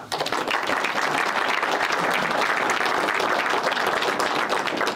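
An audience applauding steadily, stopping abruptly near the end.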